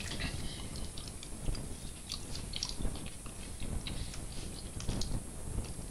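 A person eating fried catfish: quiet chewing and mouth sounds with scattered small clicks as the fish is picked apart.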